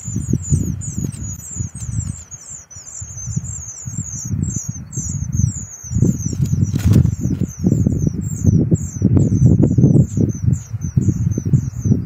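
Wind buffeting the microphone in uneven low gusts, under a rapid, even run of high-pitched chirps repeating several times a second.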